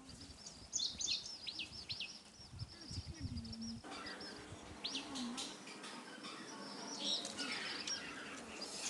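Small birds chirping in short bouts of quick, high, falling notes.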